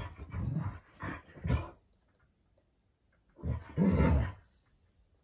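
Alaskan malamutes, an adult and a puppy, play-fighting with dog growls: a few short growls in the first second and a half, then one louder growl of about a second past the three-second mark.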